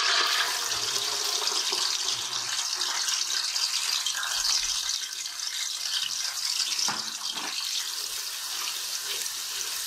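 Sliced onions sizzling steadily as they fry in hot ghee in a pressure cooker, stirred with a spatula.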